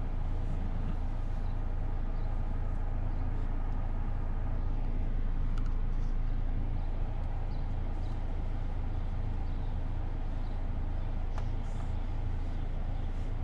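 Steady low rumble of a car driving, heard from inside the cabin, with a single faint click about seven seconds in.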